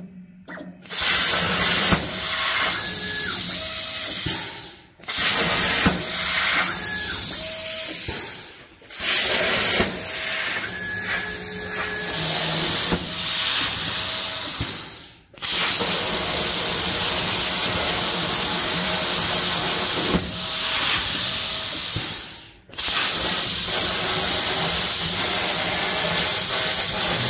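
CNC plasma cutting table's torch cutting steel sheet: a loud, steady hiss of the arc and air, in long cuts that break off briefly four times as the torch stops and restarts.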